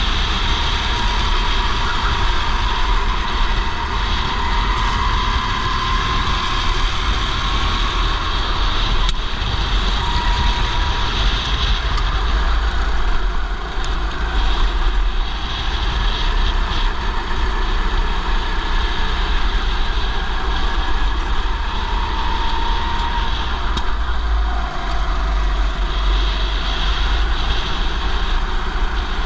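Go-kart engine running at racing pace, its note rising and falling with the throttle through the corners, heard from a helmet-mounted camera with a heavy low rumble on the microphone.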